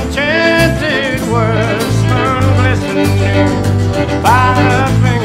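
Country-style band music: strummed acoustic guitar and low bass notes under a sliding melody line.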